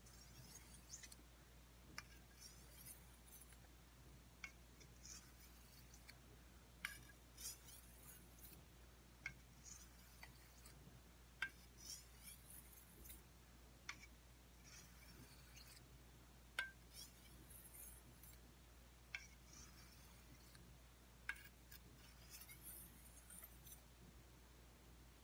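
Machete blade being stroked across an oiled honing stone to finish the edge: faint, slow strokes, each a light click with a short high scrape, about one every two seconds.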